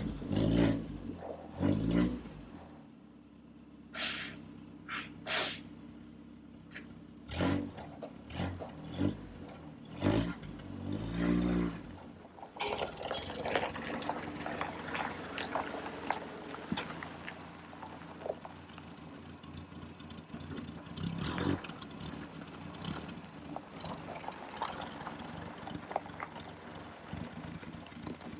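1964 Land Rover Series IIA engine running while the truck is backed up, revved in several short swells over the first twelve seconds, then running more evenly.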